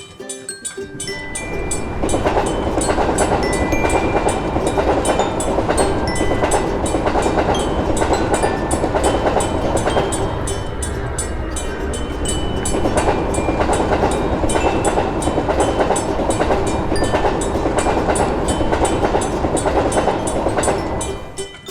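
Train passing over a level crossing: a rumble of wheels on rail that swells about two seconds in, eases a little about halfway, rises again and drops away just before the end. A fast, regular ticking runs through it.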